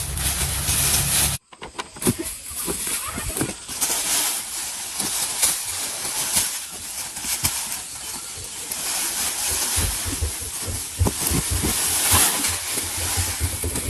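Steady hiss of rain and wind with scattered knocks and clatter. The sound cuts out abruptly about a second and a half in, and the rumble heard before that is gone when it returns.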